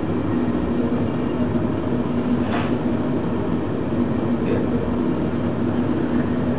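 A steady low hum of background noise, with a faint click about two and a half seconds in and another about four and a half seconds in.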